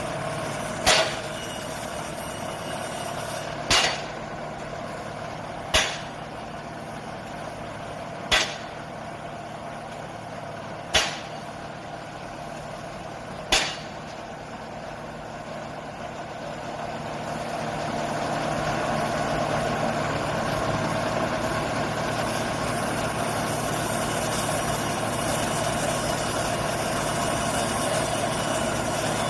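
Drilling rig's standard penetration test hammer striking six times, evenly, about every two and a half seconds, over the steady hum of the rig's engine. From about two-thirds of the way in, the engine grows louder and runs harder until the end.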